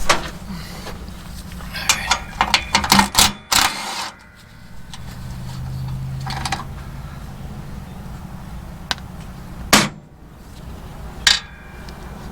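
Metal hand tools clicking and knocking against truck parts, with a quick run of clinks and ratchet-like clicks early and two louder single knocks near the end, over a steady low hum.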